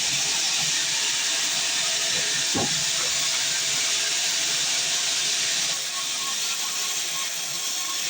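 Sawmill band saw blade cutting through a heavy, dense log, a steady hissing rasp that eases slightly about six seconds in. A brief falling squeal comes about two and a half seconds in.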